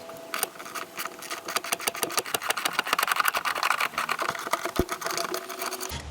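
Hand ratchet wrench clicking rapidly as fasteners are worked loose, stopping suddenly near the end.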